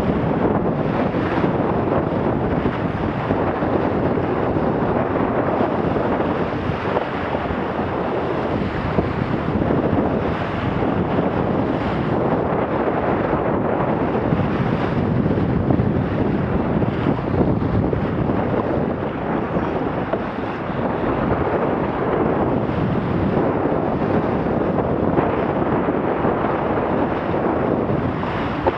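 Wind buffeting the microphone over the rush and splash of water along the hull of a Laser dinghy planing at about 10 knots. The noise is loud and steady.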